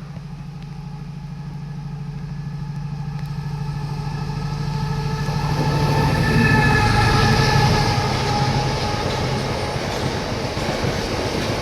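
Train moving through the station close by: a steady low drone with a whine over it, growing louder to a peak a little past halfway and easing slightly after.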